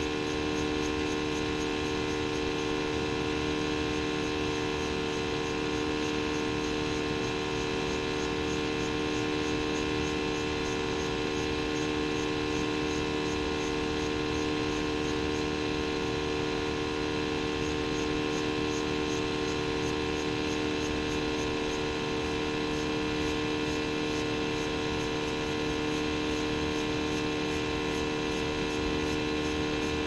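Steady machine hum with several even, unchanging tones, as from an electric motor-driven unit running continuously.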